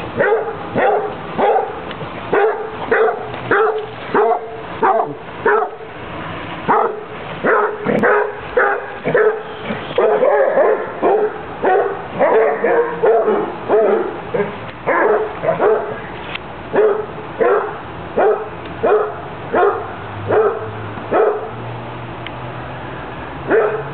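A dog barking over and over, about two barks a second, stopping shortly before a single last bark near the end.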